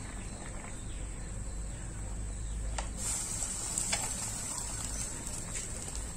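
Pan of braised scad fish boiling, a steady bubbling with a few light clicks.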